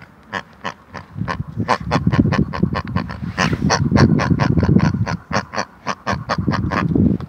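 Rapid pig grunting and oinking, a fast run of short grunts that starts about a second in and grows louder.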